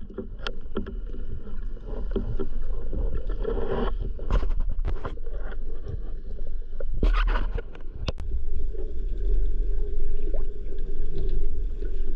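Underwater sound through an action camera's waterproof housing: a steady low rumble of water movement with scattered knocks and clicks from the speargun and its speared fish being handled, and a louder cluster of knocks about seven seconds in.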